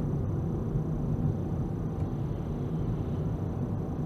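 Steady low rumble of road traffic, with a faint steady high tone above it.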